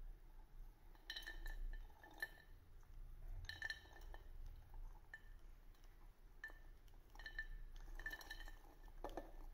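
Hawthorn berries being poured from a glass bowl into a glass jar, with faint, irregular glassy clinks, about one every second, as berries drop against the glass and the bowl meets the jar.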